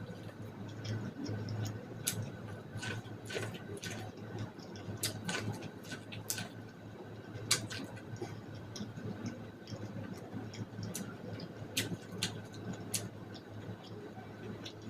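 Close-up eating sounds of boiled corn on the cob: wet chewing, lip smacks and mouth clicks, coming irregularly, over a steady low hum.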